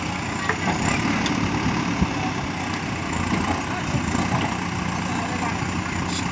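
JCB 3DX backhoe loader's diesel engine running steadily at low revs, with a few faint knocks.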